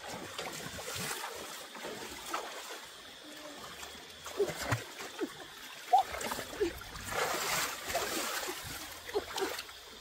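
Shallow stream water splashing and sloshing as hands plunge, grab and scoop in it, with irregular sharp plops; the loudest splash comes about six seconds in.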